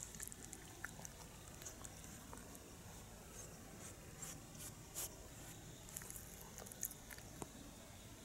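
A cat chewing and tearing at a whole raw salmon: faint, irregular wet clicks and crunches, with a few louder ones about five and seven seconds in.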